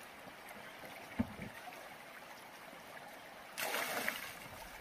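River water flowing steadily, with a single low thump about a second in and a sudden burst of rushing noise, louder than the water, lasting about a second near the end.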